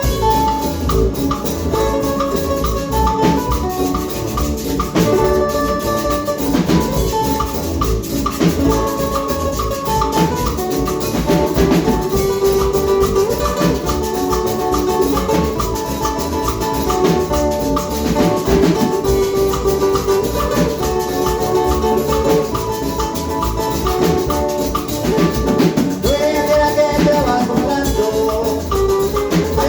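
Instrumental Latin American music with a melody over a steady beat of drums and maracas.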